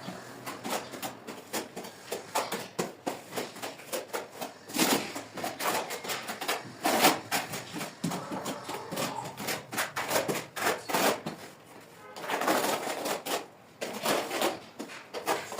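Irregular clicks and knocks, with a few short stretches of denser clatter.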